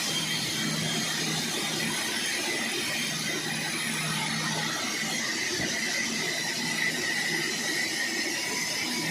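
Sawmill saw running steadily as it cuts through a large log: constant machine noise with a thin high whine and a low hum.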